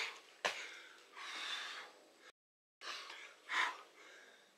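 A man breathing hard from exertion during burpees: heavy breaths in and out about once a second, one of them sharp and sudden about half a second in. The audio drops out completely for half a second just past the middle.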